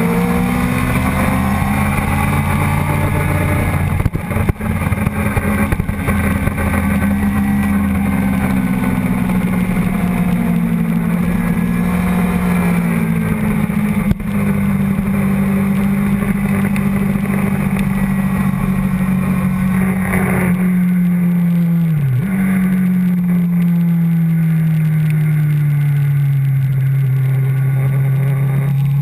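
Sportbike engine running hard at racing speed, heard from a camera on the bike's tail, its note rising and falling with throttle and gear changes over steady wind rush. About three-quarters of the way through the pitch drops sharply, then climbs slowly again; two brief knocks come early and near the middle.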